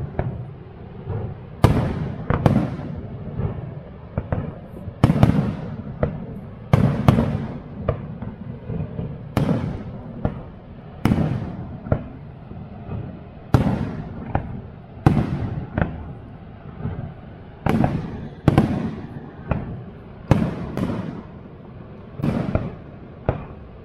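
Aerial fireworks shells bursting in a continuous display, a loud bang every second or two, each trailing off in a rolling echo over a steady low rush.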